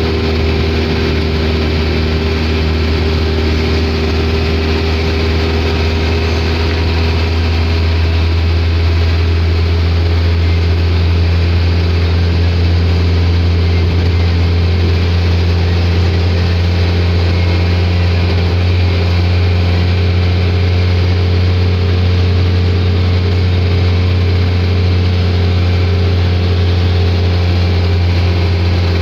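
Minibus engine and road noise heard from inside the cabin while cruising on a highway: a steady low drone. The engine note shifts slightly about eight seconds in.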